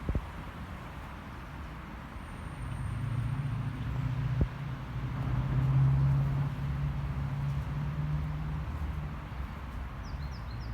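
Low, steady motor-vehicle engine drone that swells to its loudest about halfway through and then eases off, with one sharp click shortly before the peak.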